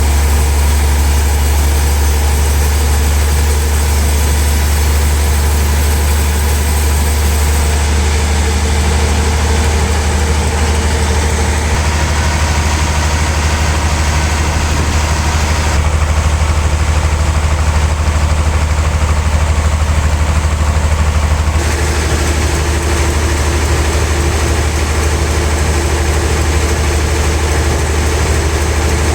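Sawmill machinery running with a steady, deep engine hum; the higher-pitched noise over it changes abruptly a few times.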